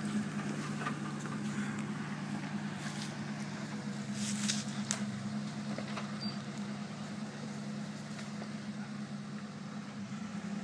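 Land Rover Discovery's engine running steadily at low revs as it crawls down over rocks, with a few sharp knocks, the loudest about four and a half seconds in.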